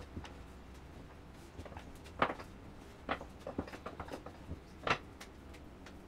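Wooden rolling pin working flatbread dough on a wooden tabletop: a few light, separate knocks of wood on wood, the loudest about two seconds in, over a faint steady hum.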